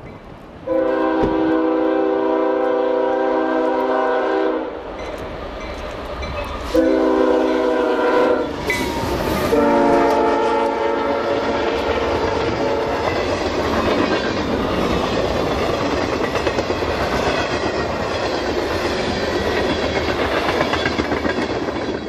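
CSX freight train's locomotive air horn sounding three blasts, long, short, long, as it approaches. The train then passes close by, the freight cars rolling along the rails with a steady rumble and rhythmic clatter.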